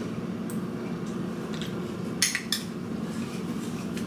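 Metal spoon clinking against a white ceramic bowl: a few light clinks, the loudest pair close together a little after two seconds in, over a steady low hum.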